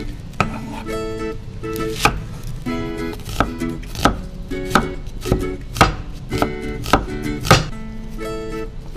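A chef's knife slicing a red onion on a wooden chopping board: about ten sharp knocks of the blade against the board, mostly half a second to a second apart and stopping near the end. Background ukulele music plays throughout.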